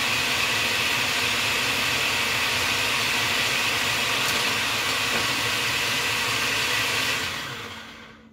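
Electric food processor motor running steadily while blending pesto as olive oil is poured in through the feed tube; about seven seconds in it is switched off and winds down to a stop.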